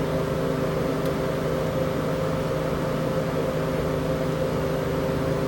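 Steady motor hum of running refrigeration equipment, with a few steady low tones, and a faint click about a second in.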